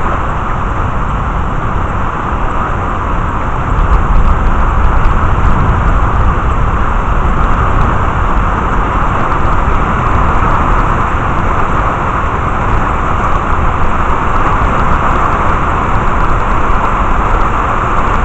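Thunderstorm wind gusting hard and buffeting the microphone, a steady rushing noise that grows louder about four seconds in.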